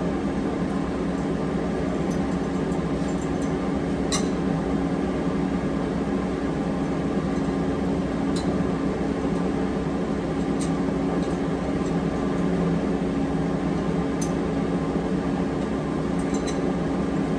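Steady hum of shop machinery, with a few sharp metal clinks from parts being handled while someone searches for a spare flange.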